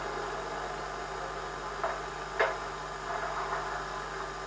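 Cardboard box being handled and opened: two short knocks about two seconds in, then light rustling, over a steady videotape hiss and hum.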